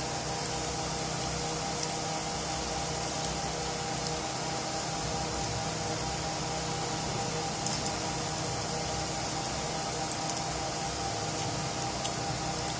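Steady hum and hiss of room noise, like a running fan, with a few short clicks: three close together about eight seconds in, then one or two more later.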